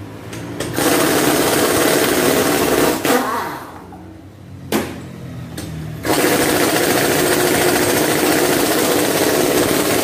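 Pneumatic impact wrench hammering the wheel's lug nuts loose, in two long runs: the first starts about a second in and spins down after a couple of seconds, and the second starts about six seconds in. A sharp click falls between them.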